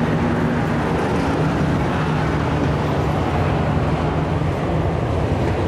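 Dirt-track race trucks running laps on a dirt oval, a steady engine note from the field over a haze of track and grandstand noise.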